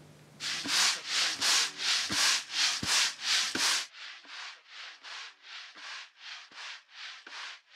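Dry grain swishing back and forth in a large wooden bowl being shaken by hand, in an even rhythm of about three swishes a second, each with a faint knock. It is louder for the first few seconds, then quieter from about four seconds in.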